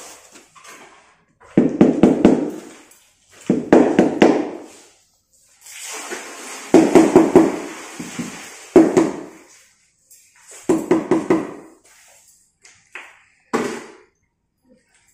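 A mallet tapping a newly laid ceramic floor tile to bed it down into the wet mortar. The taps come in quick runs of about a second each, about six runs with short pauses between, the last ones lighter.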